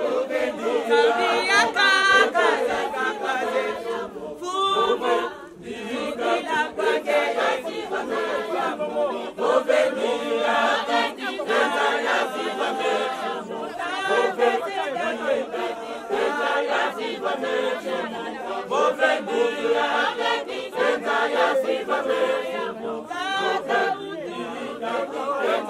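A large group of church members, mostly women, singing together in chorus, with a brief lull about five seconds in.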